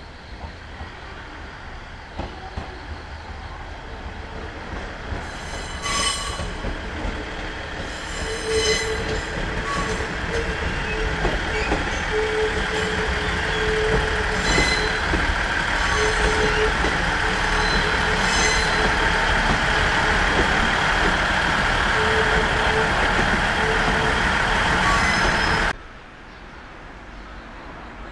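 115-series electric train running into the station, growing steadily louder, with a squeal in one steady tone that comes and goes and scattered clicks from the wheels over the track. The sound cuts off abruptly near the end.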